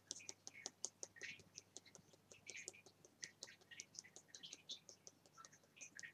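Two fingertips tapping repeatedly on the back of the hand at the gamut point: faint, quick clicking taps, several a second.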